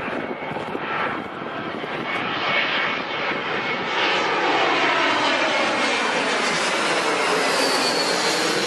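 Jet airliner's engines passing low and close, growing louder about four seconds in, with a sweeping whoosh as the aircraft goes by and a faint falling high whine near the end.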